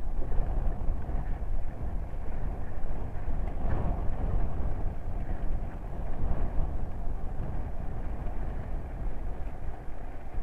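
Wind buffeting a handlebar-mounted camera's microphone while riding an e-bike, with the bike's road and tyre rumble underneath. It is a steady, gusty low rumble that swells briefly about four seconds in.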